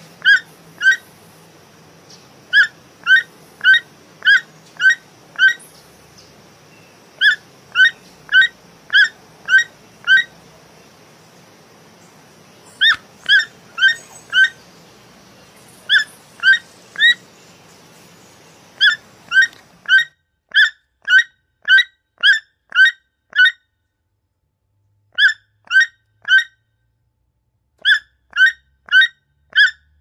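Toucan calling: short, sharp, croaking notes repeated about twice a second in runs of a few to about nine calls, with short pauses between runs. A faint background hiss under the calls cuts off about two-thirds of the way through.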